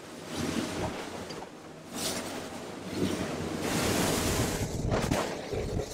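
Spray and choppy water rushing past a running boat's hull, with wind buffeting the microphone. There are louder surges of spray hiss about two seconds in and again around four seconds.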